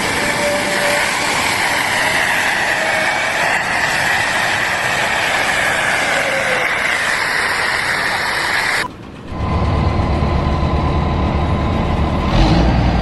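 Loud, steady mechanical noise, then after an abrupt change about nine seconds in, the low rumble of a heavy engine running.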